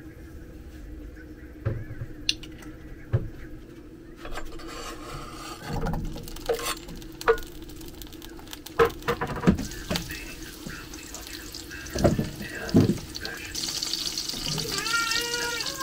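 Kitchen work at the sink: a series of sharp knocks and clinks of kitchenware being handled, then a tap turned on and running near the end.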